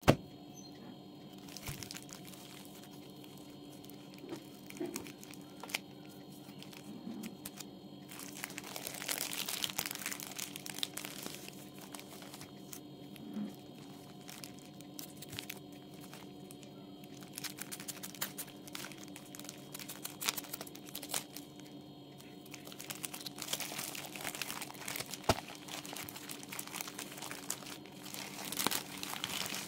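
Plastic courier mailer bag crinkling and rustling as it is handled and cut open with scissors, with scattered sharp clicks and snips; the crinkling gets busier from about halfway through.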